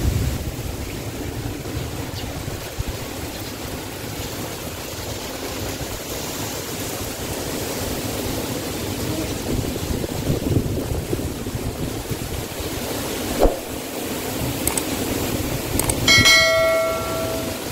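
Typhoon wind and heavy rain blowing steadily through coconut palms, with a single sharp knock about two-thirds of the way in. Near the end, a short bell-like chime rings for about a second.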